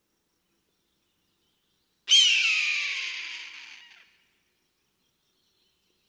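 A single hoarse scream of a bird of prey, the call of an eagle. It starts suddenly about two seconds in, slides down in pitch and fades away over about two seconds.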